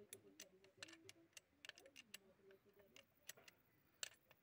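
Faint, light metallic clicks and taps of a hand tool working on a Tata Sumo starter motor. They come irregularly, a few a second, with the sharpest click about four seconds in.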